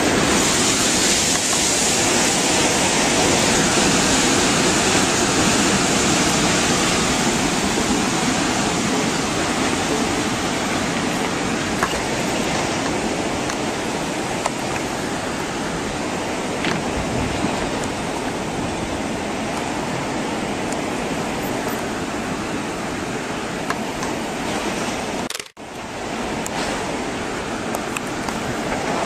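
Steady, even rushing noise with a few faint clicks, cutting out briefly about 25 seconds in.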